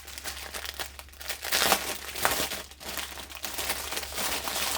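Plastic packaging crinkling and rustling as it is handled, with many small crackles.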